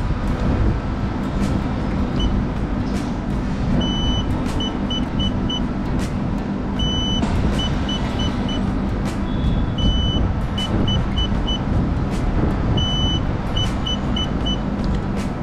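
Electric scooter's dashboard beeping during a reset: one long beep followed by four quick beeps, repeated four times about every three seconds. A steady low rumble runs underneath.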